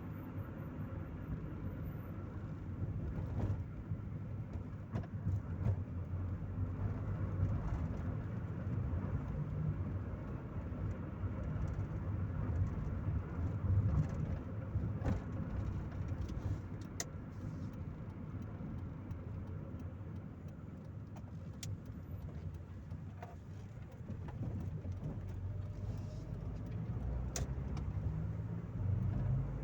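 Chevrolet Corsa Maxx driving: a steady engine drone and road rumble, with a few faint clicks. Near the end the engine note rises as the car accelerates.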